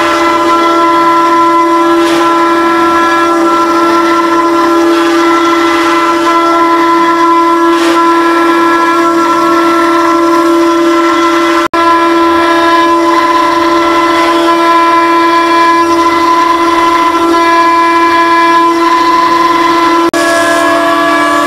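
CNC router spindle running at high speed with a steady high whine as its end mill engraves a star-shaped relief into a metal plate, a rougher cutting noise wavering underneath. The sound drops out for an instant twice, near the middle and near the end.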